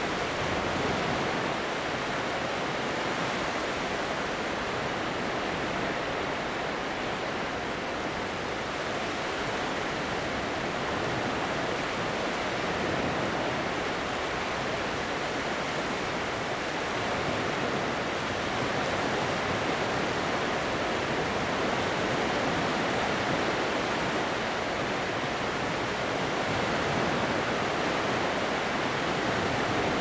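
Sea surf washing onto the shore: a steady, unbroken hiss of small waves that swells and eases gently, with no single crash standing out.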